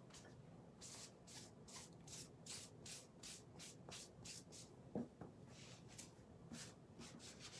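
Damp Chalk Couture scrubber sponge rubbed back and forth across a stencil in quick, faint strokes, about two to three a second, washing leftover chalk paste out of its holes. A soft knock comes about five seconds in.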